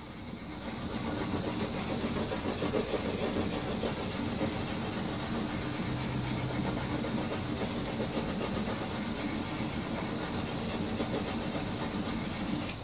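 Handheld gas torch burning steadily as its flame is passed over wet acrylic pour paint, then cut off suddenly near the end.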